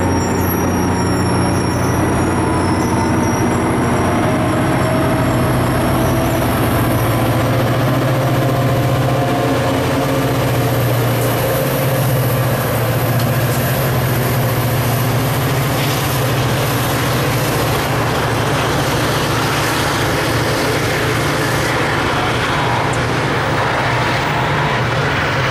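Diesel commuter train going by and pulling away, its EMD F40PH diesel-electric locomotive at the rear working under power with a steady, loud engine drone over the rumble of the cars. A thin high wheel squeal rings over it in the first few seconds.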